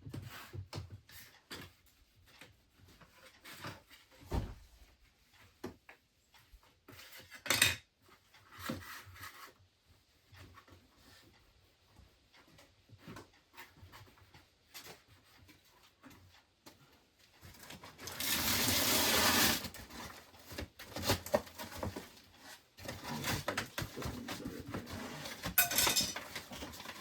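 Objects being handled and sorted by hand: scattered light knocks and clatter, with about two seconds of loud rustling two-thirds of the way through.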